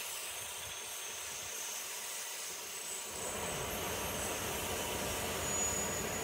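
Freight train of yellow engineering wagons running round a curve, wheels on the rails making a steady hissing rumble. The low rumble grows louder about three seconds in, with faint high whistling tones near the end, then the sound cuts off abruptly.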